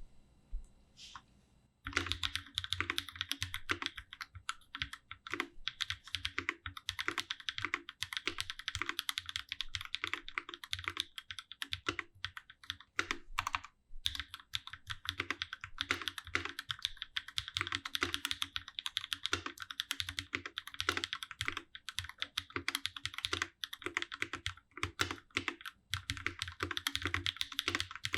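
Continuous fast typing on a custom 65% mechanical keyboard, a Space65 CyberVoyager fitted with Durock POM linear switches and GMK Striker Cherry-profile keycaps, sitting on a deskmat. The typing starts about two seconds in as a dense run of clacky key strokes with a soft low thock under each, pausing briefly about halfway through.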